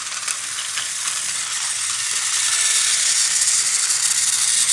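Battery-powered Thomas and Friends toy trains running around a plastic track: a steady, high-pitched whir and rattle of their small motors and wheels, slowly getting louder.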